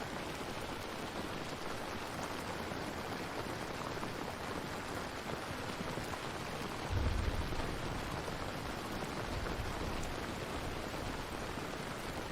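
Steady rain falling, an even hiss of drops. A short low rumble comes through about seven seconds in.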